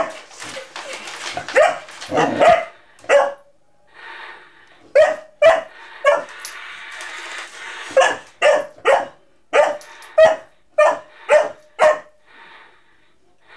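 Golden retriever puppy barking repeatedly, short high barks coming in loose runs, about fifteen in all, with a longer pause after the first few.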